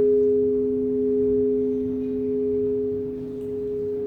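A 387 kg, 139-year-old tower bell humming on after a strike as it is rung up. Two steady tones, one higher and one lower, slowly swell and ease about every second and a bit.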